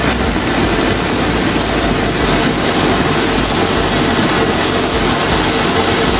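Elephant brand X-Mas Tree ground fountain firework spraying a tall column of sparks, with a loud steady hiss.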